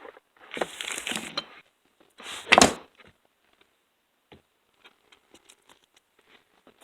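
Handling noise as a chainsaw is turned and repositioned: two loud rustling, clattering bursts in the first three seconds, the second the louder, then a few faint clicks.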